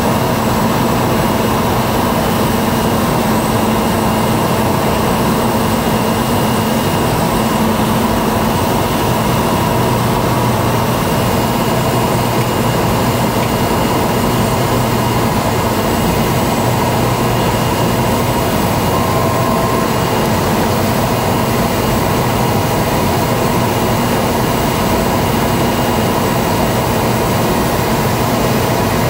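Cessna Grand Caravan EX's single turboprop engine and propeller droning steadily, heard inside the cockpit on final approach: a loud, unchanging rush with steady humming tones. A short beep sounds about two-thirds of the way in.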